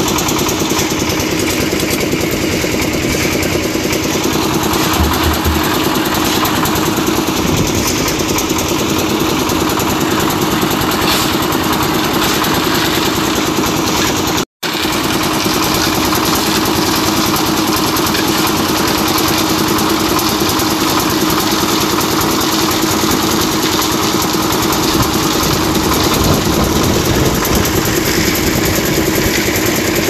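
Engine of a portable concrete mixer running steadily, with a momentary dropout about halfway through.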